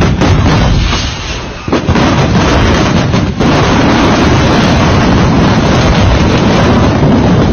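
A stock of fireworks rockets blowing up: sudden loud blasts right at the start and again a little under two seconds in, then a continuous loud rumble of noise that overloads the microphone.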